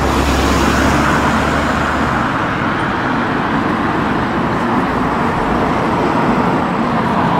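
Steady road traffic noise from cars passing on a busy road, with a vehicle's low rumble that fades out about two seconds in.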